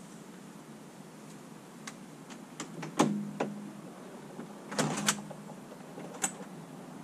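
Irregular sharp taps and knocks over a steady hiss. The loudest comes a little before halfway, and a quick run of three follows later, some with a short low ring.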